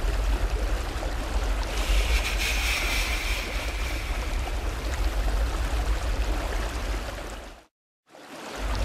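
Flowing river water: a steady rushing noise with a heavy low rumble, briefly brighter and hissier about two seconds in. It fades out near the end.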